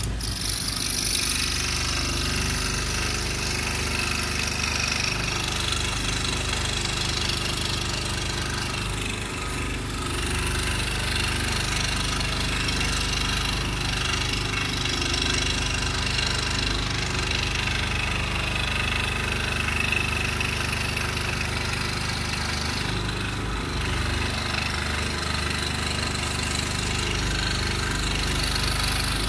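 Scroll saw running steadily, its blade reciprocating as it cuts through a taped black walnut board.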